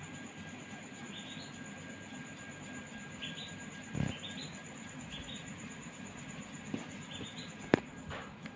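Bird chirping: short rising chirps in quick groups of three or four, over a steady hiss with a faint high steady tone. A soft thump about four seconds in and a sharp click near the end, the click the loudest sound.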